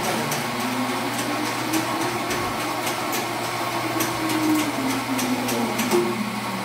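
Espresso machine steam wand steaming milk: a steady hiss with a wavering tone that slowly rises and falls, with scattered clicks and clinks of metal and crockery.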